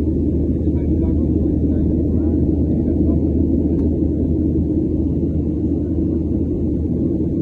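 Airliner cabin noise: a steady low rumble of jet engines and airflow heard from a window seat.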